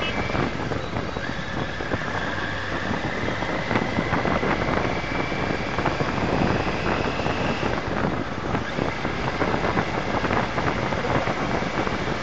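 Riding sound picked up by a dash cam mounted on a Triumph Tiger 900 GT adventure motorcycle on the move: steady wind and road noise with a continual light rattle, and a faint whine that slowly rises in pitch.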